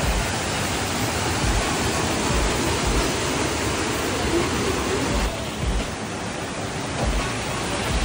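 Waterfall: water rushing steadily down a stepped concrete weir and over rocks, a dense, even rushing sound.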